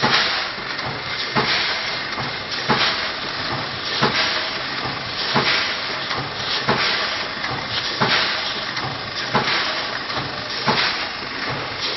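Automatic vertical granule packing machine running, with a sharp clack about every 1.3 seconds as it cycles through each bag, over a steady hiss.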